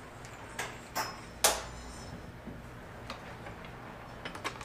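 A few scattered sharp clicks and knocks, the loudest about a second and a half in and a small cluster near the end, over a steady low hum.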